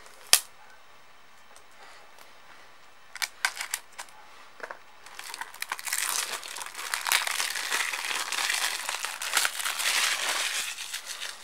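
A sharp click just after the start and a few lighter clicks about three seconds in, then from about five seconds on the steady crinkling of plastic shrink-wrap being torn and peeled off a Blu-ray case.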